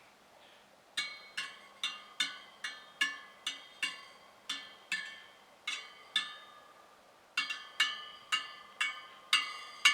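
Spokes of a freshly trued Honda 50 wheel tapped one after another, each giving a short ringing ping, about two or three a second, with a brief pause a little past halfway. The spokes all sound much the same: the sign of even spoke tension.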